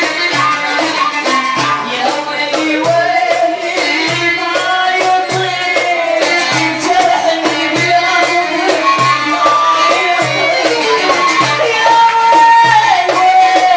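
Iraqi traditional ensemble music: a wavering, ornamented melody line over a steady, evenly repeating percussion beat.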